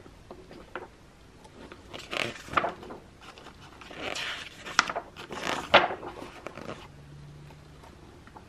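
Pages of a large, thick-paper instruction manual being turned by hand: several rustling swishes of paper, the loudest a little before the end.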